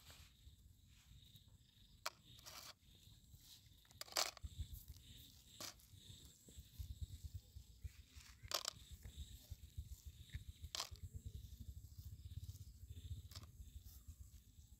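Faint handling sounds of coiled millipedes being picked off concrete and dropped into a plastic tub: a few sharp clicks a second or two apart, with soft scrapes, over a low fluttering rumble that sets in about four seconds in.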